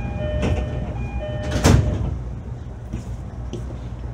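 E531-series commuter train's two-tone door chime repeating over a steady low rumble, with two sharp knocks, the loudest about 1.7 s in, as the sliding doors move; it is quieter after that.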